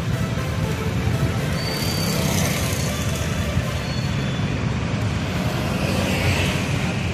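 Steady engine and road noise heard from inside a moving passenger vehicle with open windows.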